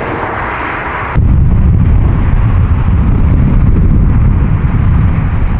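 Airbus A350's Rolls-Royce Trent XWB jet engines on the runway. A quieter hiss gives way, about a second in, to a loud, steady, deep rumble of takeoff thrust, with wind buffeting the microphone.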